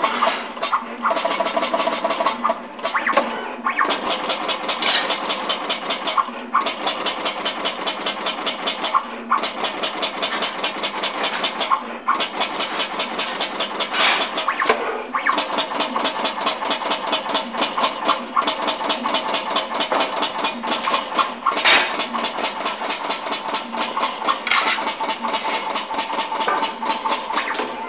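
LX-P800 soft-silicone label dispensing machine running: a fast, steady mechanical rattle with a faint whine, and a few sharper clicks, one about halfway through and a louder one about three-quarters through.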